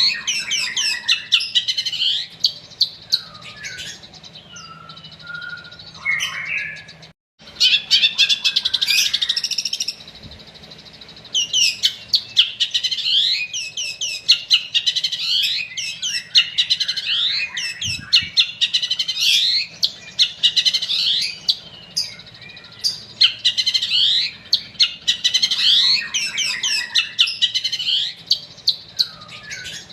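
Long-tailed shrike (cendet) singing a fast, chattering song of quick chirps in bursts several seconds long, with short pauses between them.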